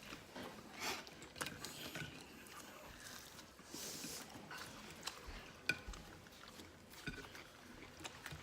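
Faint chewing and mouth clicks of chicken nuggets being eaten fast, with scattered soft clicks and smacks.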